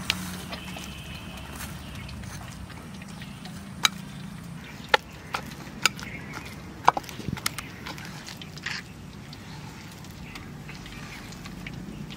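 Boiled potato and tomato being mashed and squeezed by hand in a bowl, with a few sharp clicks and knocks about a second apart near the middle, over a steady low hum.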